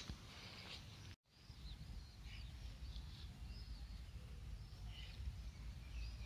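Faint outdoor ambience: a steady low rumble with small birds chirping now and then. The sound drops out completely for a moment about a second in.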